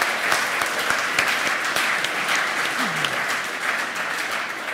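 Large audience applauding, many hands clapping at once in a dense, steady patter that starts to ease off near the end.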